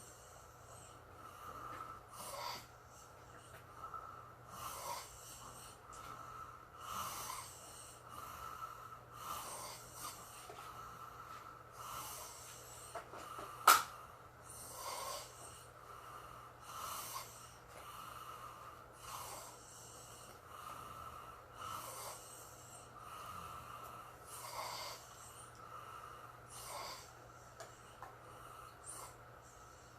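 Faint, slow snoring: noisy breaths at an even pace, about one every two and a half seconds. A single sharp click about fourteen seconds in is the loudest sound.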